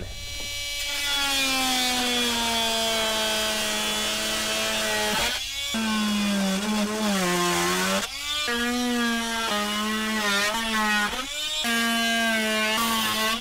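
Oscillating multi-tool running and cutting into the plastic inner dash support, a steady whine that sags in pitch as the blade bites. It stops briefly three times and starts again.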